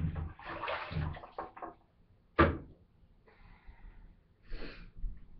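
Handling noises at a plastic 5-gallon bucket as laundry soap is mixed into the water, with one sharp, loud knock about two and a half seconds in and a short swish near the end.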